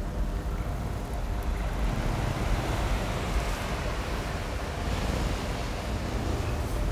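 Ambient electronic score: a dense, noisy drone over a deep rumble, like wind or surf, growing brighter about two seconds in and easing back near the end.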